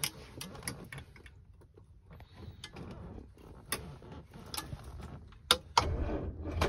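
Clicks and knocks of the floor gear lever and dashboard controls being worked in a 1960 Rover P4 80, then near the end a sudden low rumble as the ignition key is turned for a cold start.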